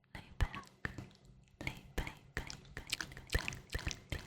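Close-miked ASMR mouth sounds: irregular wet clicks and smacks of lips and tongue, several a second.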